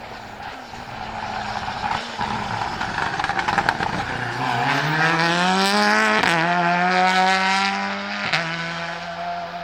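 Peugeot 308 TCR race car's 1.6-litre turbocharged four-cylinder accelerating hard past, with a few sharp pops about three and a half seconds in. The engine note climbs steadily, then is cut briefly twice, about six and eight seconds in, as it changes gear, and it fades somewhat near the end.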